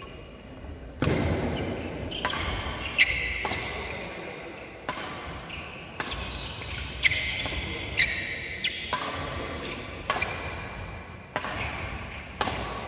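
Badminton rackets striking a shuttlecock in a fast doubles rally: about a dozen sharp hits, roughly one a second, each echoing in a large empty hall.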